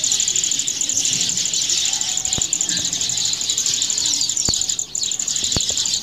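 Steady, high-pitched insect chorus with a fast pulsing beat, crickets or cicadas calling together. Three sharp taps cut through it in the second half.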